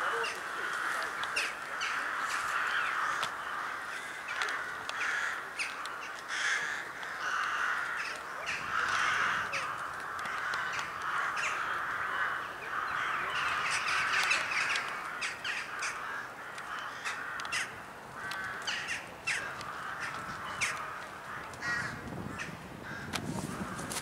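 A large flock of crows cawing, many birds calling over one another without a break.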